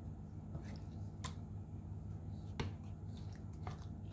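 A spoon spreading meat sauce in a ceramic baking dish, with a few faint sharp clicks about a second apart as it taps the dish, over a steady low hum.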